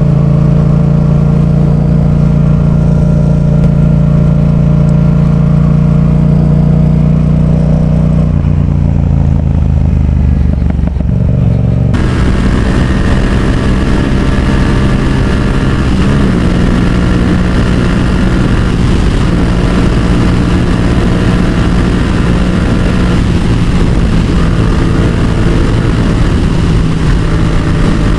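Yamaha XSR700's parallel-twin engine running at a steady speed under way, heard through a Yoshimura R77 exhaust. The engine note changes about eight seconds in, and from about twelve seconds a loud rush of wind noise joins it.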